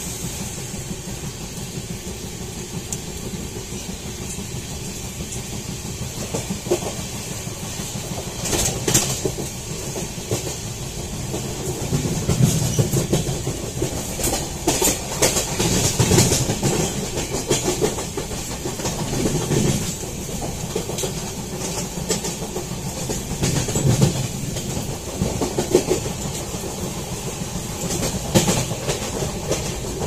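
Moving train's wheels running over the rails: a steady rumble and hiss with bunches of clickety-clack every few seconds, heard from inside the coach by the window.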